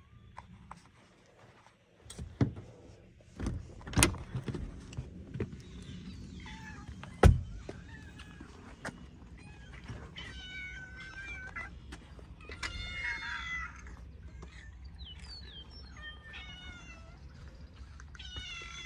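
Several hungry outdoor cats meowing for food, many calls overlapping, with a few sharp thumps in the first half, the loudest about seven seconds in.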